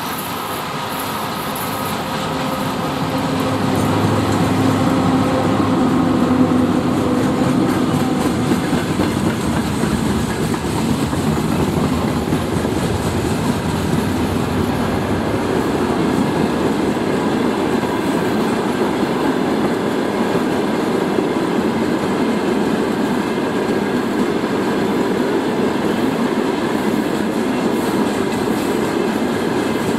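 Soviet-built VL80K electric freight locomotive passing with a steady hum for the first several seconds, then its long train of freight wagons rolling by, a continuous noise of steel wheels on the rails.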